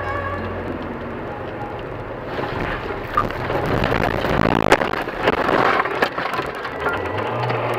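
A car leaving the road and ploughing into deep snow and roadside bushes, heard from inside the car. A rushing noise of snow and brush against the body starts a couple of seconds in, with a quick run of cracks and knocks as branches strike it, loudest about halfway through.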